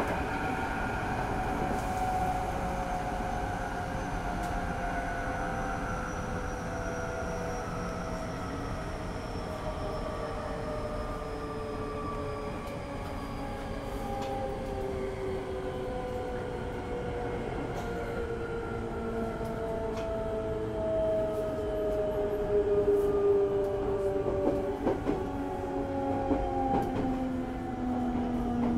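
Hankyu 8000-series (8040-type) train's Toshiba GTO VVVF inverter and traction motors whining in several tones that slowly fall in pitch as the train slows under electric braking, heard close to the bogie over steady wheel and rail rumble. A few sharp clicks from the track come through.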